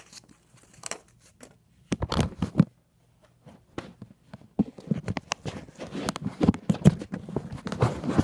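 Clear plastic wrapping crinkling and tearing as an item is unwrapped by hand. It comes in irregular crackling bursts that start about two seconds in and grow denser toward the end.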